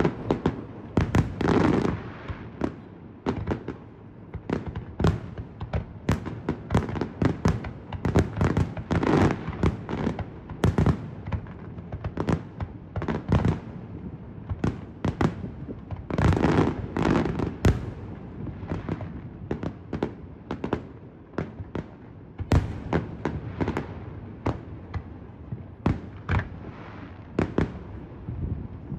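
Aerial fireworks shells launching and bursting in a dense, irregular string of bangs and booms that comes in bunched volleys of several shots at a time.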